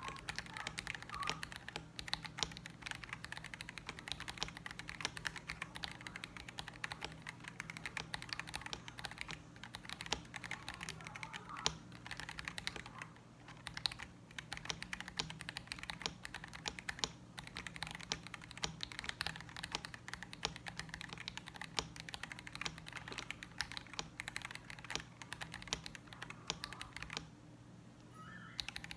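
Mechanical keyboard with unlubed Bulbasaur linear switches (polycarbonate housings, POM stems) being typed on in a fast, steady stream of key clacks, with brief pauses about halfway through and shortly before the end.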